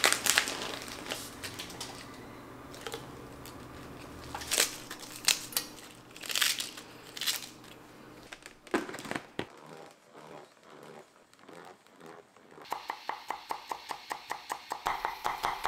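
Kitchen prep handling: crinkling and tearing of packaging, with scattered clicks and knocks. Near the end a fast, even run of taps, about five a second.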